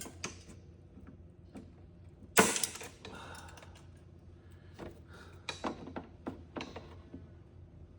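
Scattered clicks and knocks of a tool and hands working at a stuck plastic wiring connector plug, with one sharp knock about two and a half seconds in and a run of lighter clicks near the end.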